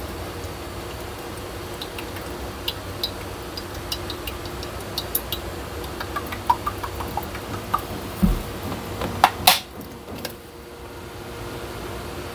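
Light clinks and taps of kitchen utensils over a steady low hum, getting busier toward the middle, with a few louder knocks about nine seconds in.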